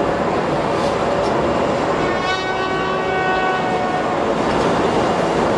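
A ship's horn sounds one long steady blast of about two seconds, starting about two seconds in, over a steady rush of wind and ship noise.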